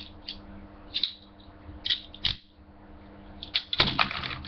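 Toy handcuffs being handled: scattered small clicks and rattles, with a quick burst of clicks and a knock near the end, over a steady low electrical hum.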